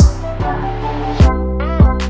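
Background music with a deep bass and a steady beat.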